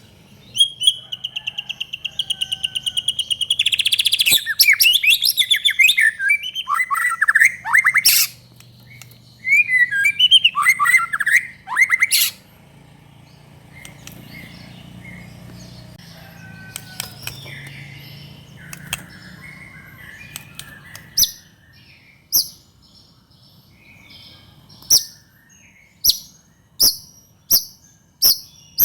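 White-rumped shama (murai batu) singing hard. It opens with a rapid trill, then gives loud, varied whistled phrases in two long bursts. Softer scattered notes follow, and near the end come sharp, short calls about once a second.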